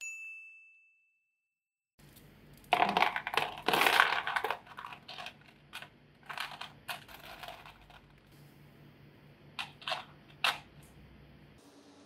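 Small magnetic balls clicking and clattering together as they are handled and snapped into place: a dense rattle of clicks, then scattered clicks and three single snaps near the end. A single bright ding rings out at the very start and fades within a second.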